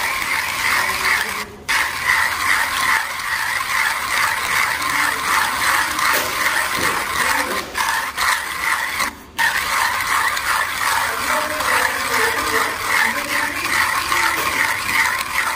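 1Zpresso hand coffee grinder being cranked, its burrs crunching coffee beans to a medium-fine grind with a fast, dense rattle. The rattle breaks off briefly about one and a half seconds in, and again around eight and nine seconds in.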